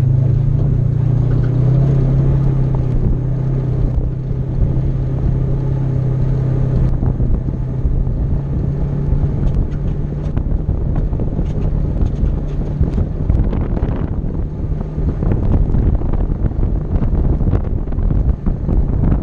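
Polaris RZR side-by-side driving along a gravel road, its engine running with a strong steady note that drops away about seven seconds in, leaving mostly tyre rumble and wind buffeting the hood-mounted microphone. Small ticks from gravel come through in the second half.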